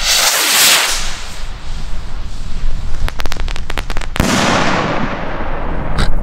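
A Funke Gigant-Salut F3 salute rocket lifting off with a hiss, then a quick run of crackles about three seconds in, and a sharp bang about four seconds in that trails off for over a second.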